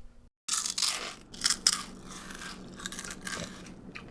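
Irregular crunching and crinkling noises that start after a brief dead gap, with several sharp crunches in the first two seconds and lighter crackling after.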